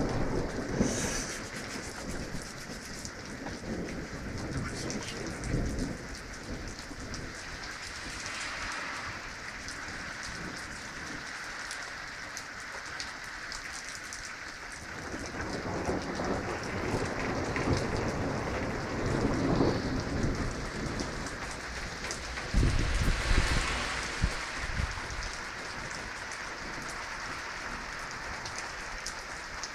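Steady rain falling, with thunder rolling. The thunder swells in the middle and peaks in a loud low rumble about three-quarters of the way through.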